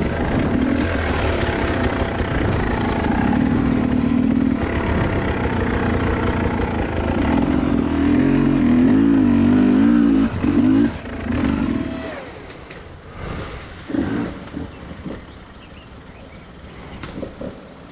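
Two-stroke dirt bike engine running under changing throttle, its pitch rising and falling. It is loudest with a quick wavering rev about eight to ten seconds in, then drops to quieter running with scattered short throttle blips from about twelve seconds on.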